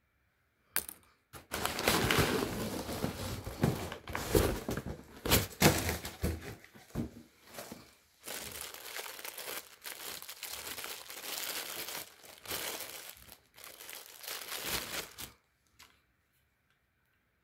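Plastic packaging handled and unwrapped by hand, rustling for about fourteen seconds with a short pause about seven seconds in.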